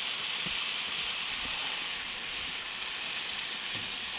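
Chicken pieces sizzling steadily in a hot pan of mole sauce, a constant frying hiss.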